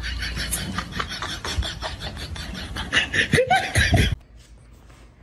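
A person laughing in quick, breathy pulses, loudest near the end and cutting off suddenly about four seconds in.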